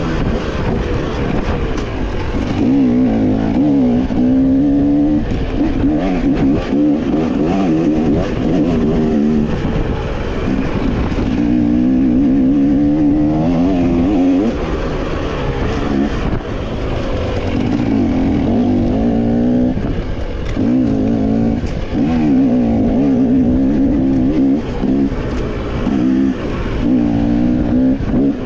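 Dirt bike engine running under load, its pitch rising and falling again and again as the throttle is opened and closed.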